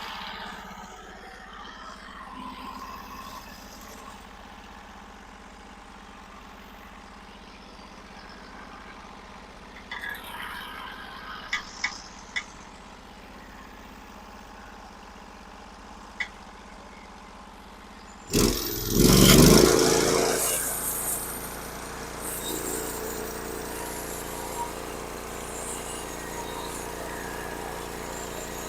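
Norwood HD36 portable bandsaw mill running steadily, with a few light clicks partway through. About two-thirds of the way in comes a loud burst lasting about two seconds, after which the mill runs louder and rougher as it saws through the cedar beam.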